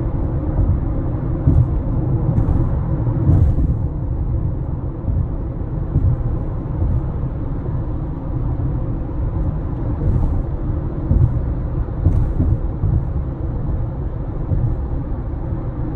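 Steady low road and engine rumble inside a moving 2018 Honda CR-V's cabin, with a few faint, short clicks at irregular moments from a dashboard rattle that is worse after the car has sat in the sun.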